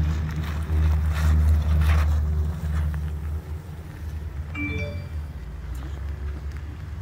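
Volvo XC90 on 33x12.50 off-road tyres driving by: a steady low engine and tyre hum, loudest for the first few seconds and then quieter as the SUV pulls away. A brief high chirp sounds about five seconds in.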